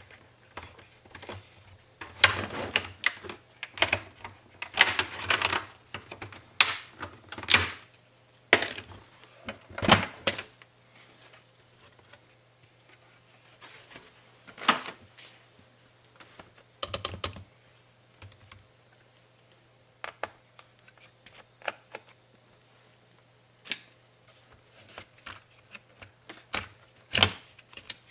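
Plastic bottom cover of an MSI GP73 Leopard laptop being pried off, its clips snapping loose in runs of sharp clicks through the first ten seconds or so, followed by scattered clicks and knocks of plastic being handled.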